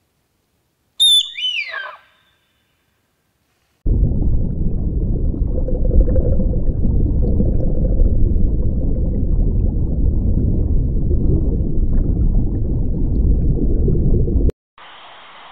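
A brief high-pitched call that slides steeply down in pitch, then, about four seconds in, a steady low rumbling water noise of an aquarium, which cuts off suddenly near the end.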